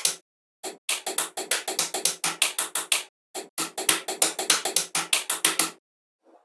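A rapid run of short percussive taps, about six a second, in two bursts with a brief pause between, stopping shortly before the end.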